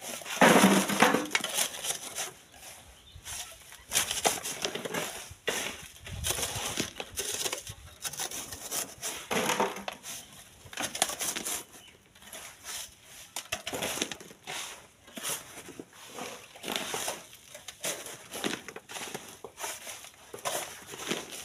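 Black volcanic sand and gravel being shovelled and shaken through a wire-mesh sieve over a steel wheelbarrow: a run of irregular gritty scrapes and rattles, loudest in the first second or two.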